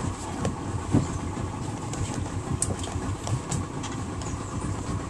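A small boat's engine idling with a steady low rumble, and a few light clicks or knocks, the loudest about a second in.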